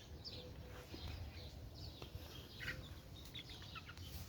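Faint, scattered chirps of small birds, several short calls a second apart, over a low steady background.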